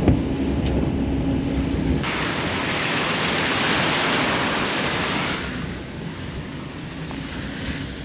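Steady engine hum and road noise inside a moving van's cab. About two seconds in this cuts off abruptly to a loud, even outdoor rushing hiss like wind on the microphone, which drops to a softer hiss a few seconds later.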